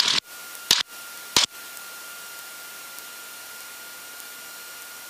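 Cockpit headset intercom feed: three short crackling bursts in the first second and a half, then steady hiss with a faint high whine, the engine itself not coming through.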